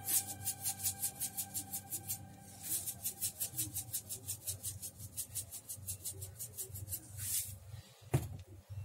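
Sugar shaker shaken quickly over mini martabak batter in a mold pan, sugar rattling out in quick strokes of about seven a second. The shaking comes in two runs, then a short burst, with a single click near the end.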